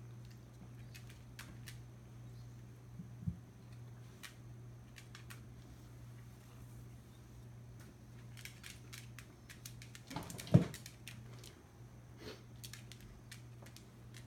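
A kitten's paws and claws ticking and scuffing on cardboard and a wooden floor as it plays, with a small knock about three seconds in and a louder thump about ten and a half seconds in. A steady low hum runs underneath.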